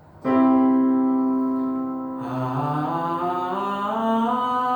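A man's singing voice glides smoothly upward from a low pitch, without breaks, over a held keyboard note that starts suddenly just after the start. The voice comes in about two seconds in and slides up to match the held note.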